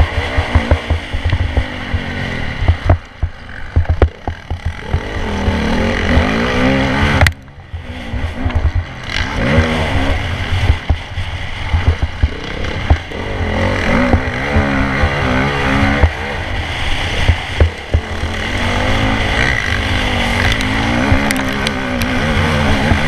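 Motocross bike engine heard from on board during a race, the revs rising and falling through turns and straights. The throttle drops off abruptly for under a second about seven seconds in, then picks up again.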